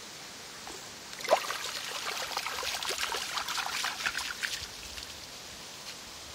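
Water splashing as a dog moves through a shallow, muddy creek: a sharp splash about a second in, then about three seconds of sloshing and splattering.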